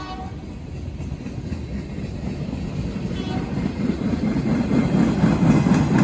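A freight train's horn cuts off just after the start. Then tank cars roll past with a rumble and wheel clatter on the rails that grows steadily louder toward the end.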